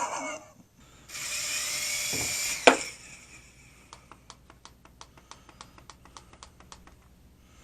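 Small toy helicopter's electric rotor motor whirring for about two seconds with a vacuum-cleaner-like noise, cut off by a sharp knock. After that comes a run of light, fast clicks, about four a second.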